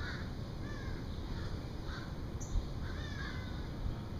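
Birds calling in the background, a run of short arched calls about twice a second, over a steady low background noise, with one sharp click about halfway through.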